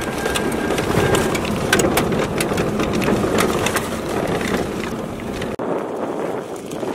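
Cabin noise of a Toyota four-wheel drive driving over a rough desert track: a steady rumble with frequent sharp clicks and rattles. About five and a half seconds in it cuts abruptly to a thinner, quieter noise.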